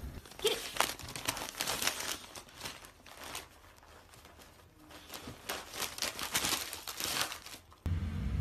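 Gift-wrapping paper crinkling and tearing as a dog noses and rips at a wrapped present, in irregular rustling crackles that stop abruptly near the end.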